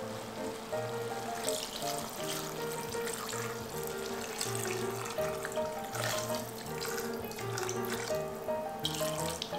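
Water poured from a glass measuring jug into a stainless steel pot of chicken and vegetables, starting about a second and a half in and running on with surges, over background music.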